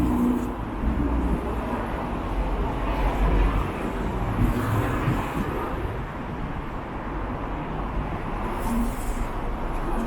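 Street ambience: wind buffeting the microphone in gusts, with road traffic passing.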